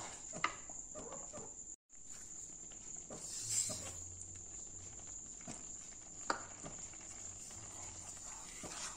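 Wooden spoon stirring thick simmering rice payasam in a nonstick pan, with a few light knocks of the spoon against the pan and a short rush of sugar poured in about three and a half seconds in. A faint steady high-pitched whine sounds throughout.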